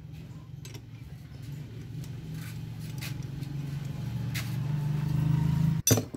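A steady low mechanical hum, like a nearby engine running, grows louder and then cuts off suddenly near the end. A few light metallic clicks come from a T-handle socket wrench working on an alternator's pulley nut.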